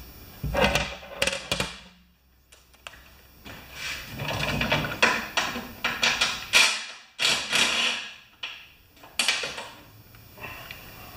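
Cordless drill with a socket running in several short bursts, backing out a bolt from a snowblower's transmission housing, with metal clicking and rattling.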